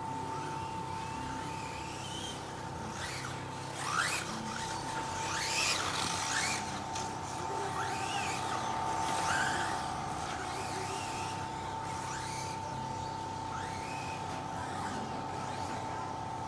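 SWORKz S14-3 4WD RC buggy driven hard, its electric motor whining up and down in pitch as it accelerates and brakes, with tyre hiss on the track; it is loudest about 4, 6 and 9 seconds in. A steady high hum runs underneath.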